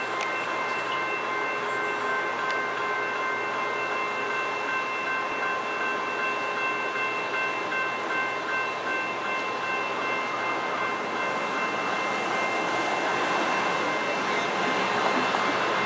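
Grade-crossing warning bells ringing steadily as a BNSF double-stack container freight train approaches. The train's noise grows louder toward the end.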